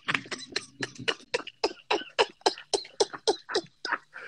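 Men laughing hard in rapid, breathy bursts, about five a second.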